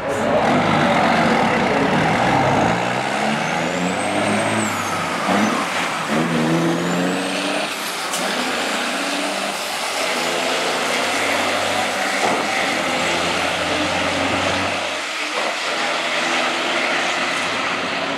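Two big-rig diesel dump trucks launching from the line and accelerating hard down the drag strip. Their engines climb in pitch and drop back at each upshift, several times over. The engine note falls away about fifteen seconds in as the trucks pull into the distance.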